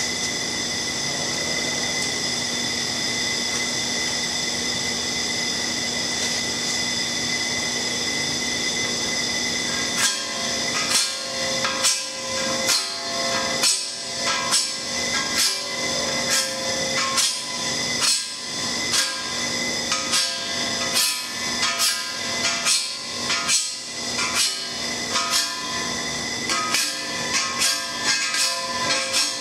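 Steady background hum with a few fixed tones, then from about ten seconds in a paint scraper scraping the black adhesive coating off a steel pipe in repeated hard strokes, about one or two a second.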